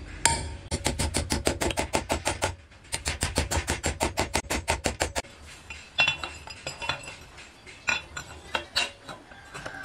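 Hammer blows, in two fast, even runs of about six taps a second, driving short ribbed steel bars upright into a wooden board. In the second half, a few scattered metal clinks as a threaded steel rod is set against the bars.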